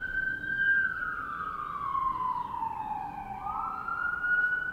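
An emergency vehicle's siren wailing, its tone sliding slowly down and then rising back up.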